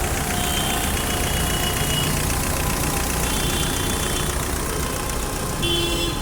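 Skoda Octavia's engine idling steadily during an engine carbon-cleaning (decarbonisation) treatment, with short faint high tones coming and going over it.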